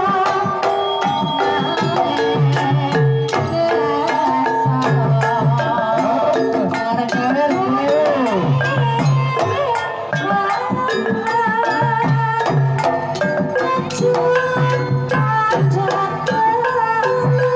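Javanese Banyumasan gamelan playing a tayub gending. The kendang hand drum beats out the rhythm over the metal keyed instruments and gongs, and a female sinden's voice winds above them.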